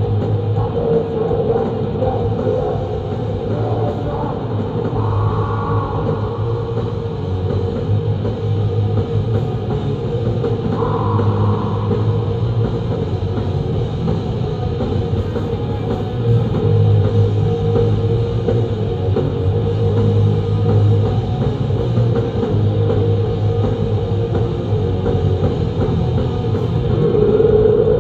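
Black metal band playing live: distorted guitars over a pounding drum kit, loud and unbroken.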